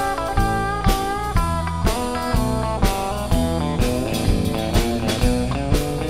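Instrumental break in a blues song: a dobro played with a slide takes the lead, its notes gliding between pitches over a drum kit keeping a steady beat of about two hits a second.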